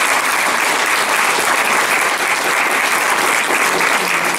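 Audience applauding, many hands clapping in a dense, even patter.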